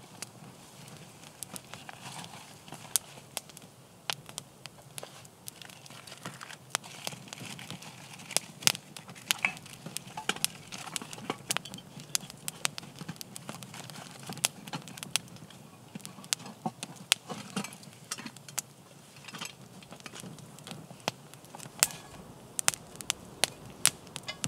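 Wood campfire burning with large flames, crackling with many irregular sharp pops.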